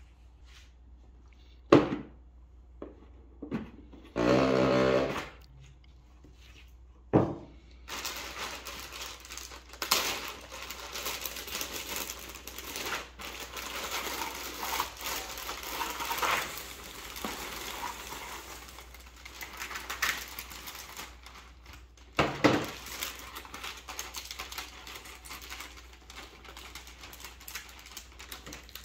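A few knocks and a short buzz, then a plastic bag of cardboard jigsaw puzzle pieces rustling as it is handled. The pieces are poured out onto a felt mat in a dense, continuous rattle.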